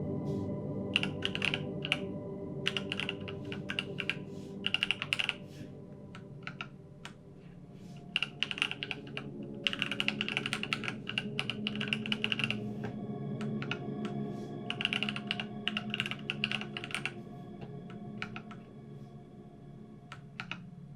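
Typing on an IQUNIX F65 Hitchhiker mechanical keyboard with TTC Gold Pink linear switches, in bursts of quick key clicks lasting a second or two with short pauses between.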